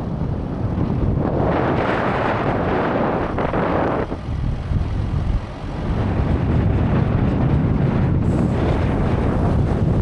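Strong wind buffeting the microphone, a steady low rumble with a louder rushing gust in the first few seconds.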